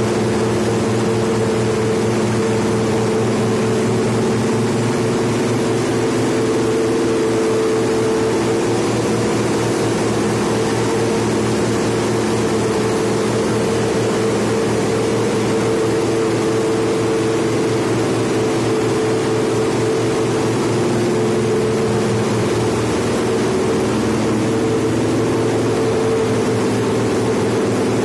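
Cable-laying ship's machinery running below decks: a steady, loud drone with several constant hum tones layered in it.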